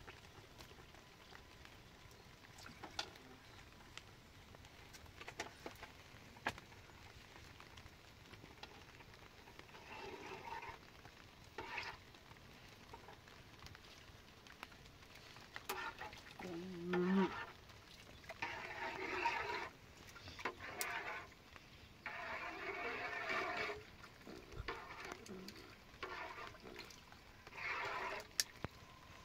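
A metal spoon stirring and scraping milk in a large pot over a wood fire, in repeated bouts of a second or two from about ten seconds in, with faint scattered clicks before that. A short low voice-like sound comes about sixteen seconds in and is the loudest thing.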